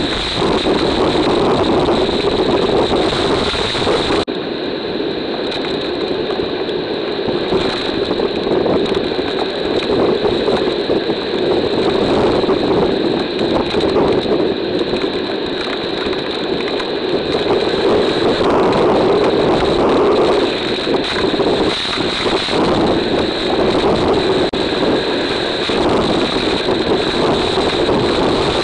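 Hurricane wind and driving rain buffeting a trail camera's microphone: a loud, steady rushing noise. It changes abruptly about four seconds in.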